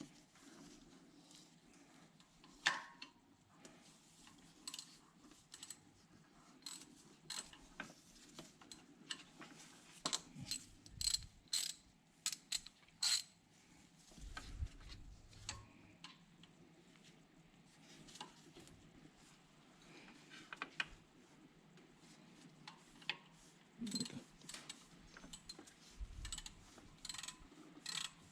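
Ratchet wrench clicking in short, irregular runs as a bolt is tightened down.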